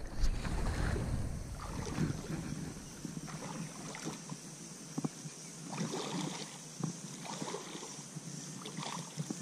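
Shallow river water sloshing, with soft intermittent splashes as a person wades slowly through it, and a steady high hiss underneath; a few sharper splashes stand out partway through.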